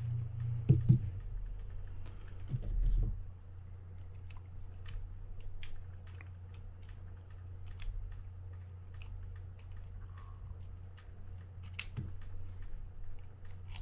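Small scattered clicks and ticks of a screwdriver and tiny screws being taken out of a Shimano Curado DC baitcasting reel and set down, with a couple of louder knocks about a second in and near three seconds, over a steady low hum.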